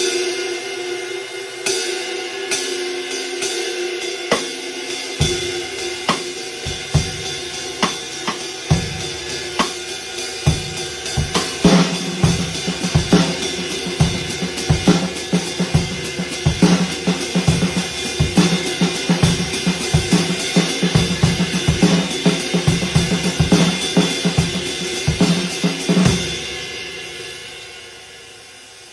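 Drum kit played in a groove around a handmade Amedia ride cymbal. The cymbal rings from the start, and bass drum and snare strokes join about five seconds in and build to a steady groove. The playing stops a few seconds before the end, leaving the cymbal ringing out and fading.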